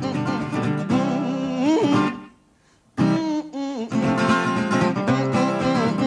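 Acoustic guitar playing a blues instrumental break, with bent notes. The playing stops abruptly about two seconds in and picks up again about a second later.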